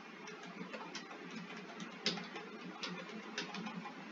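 Computer keyboard keystrokes: a faint, irregular run of light key clicks, with one louder click about two seconds in.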